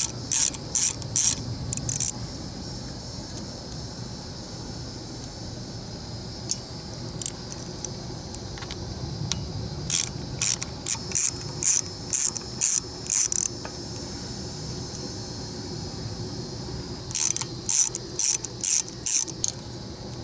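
Socket ratchet wrench loosening the fasteners of a small Briggs & Stratton engine's flywheel screen: three runs of quick back-and-forth strokes, each a short rasping buzz of clicks, about three a second, near the start, around the middle and near the end.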